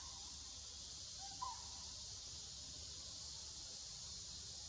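Faint forest ambience: a steady high insect drone, with one short two-note animal call about a second and a half in, a brief lower note followed by a higher rising-and-falling one.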